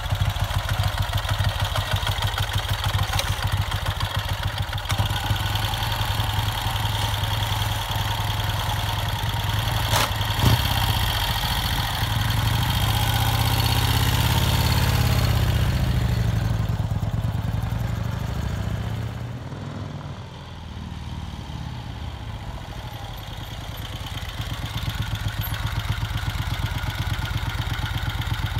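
A 1951 Vincent Rapide's 998 cc V-twin engine runs at a steady idle, with one sharp knock about ten seconds in. Its revs rise a little around the middle, fall back and run quieter for a few seconds, then pick up again near the end.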